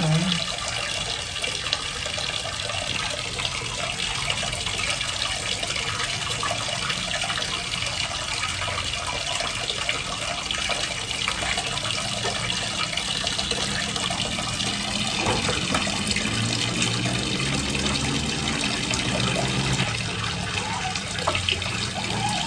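Water from a wall tap pouring in a steady stream into a plastic basin already full of water, with occasional splashing as a small monkey paws at the water and climbs into it.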